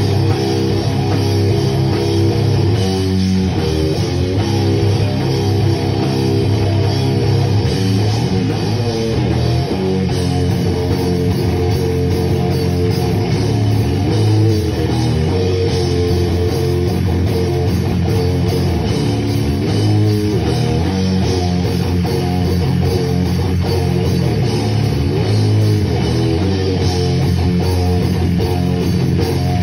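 A heavy rock band playing live, with electric guitars and a drum kit, loud and continuous.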